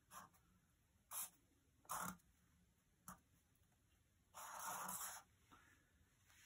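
Faint scratchy strokes of marker pens on paper: short strokes about a second apart, then a longer stroke lasting most of a second around four and a half seconds in.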